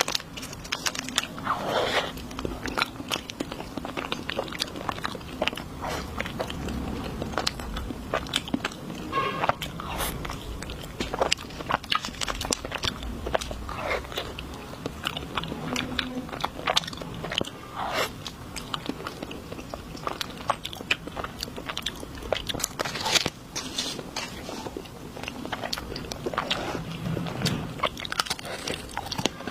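Close-miked eating of desserts: irregular crunchy bites and crackles followed by chewing and wet mouth sounds.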